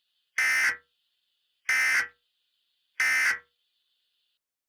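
Emergency Alert System end-of-message data tones: three identical short, buzzy bursts of SAME digital code about 1.3 seconds apart, signalling the end of the alert.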